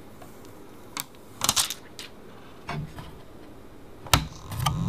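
Scattered clicks and knocks of printer-kit parts and tools being handled during assembly: a few light ones, a quick pair about a second and a half in, and a louder sharp knock a little after four seconds.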